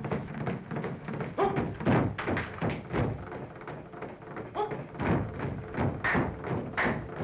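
Rhythmic percussion on an old cartoon soundtrack: quick thumps and taps in a steady beat of about four a second, with a couple of short pitched calls.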